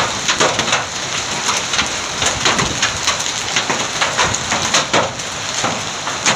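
Heavy hail falling on a paved road, a dense, irregular clatter of many small impacts.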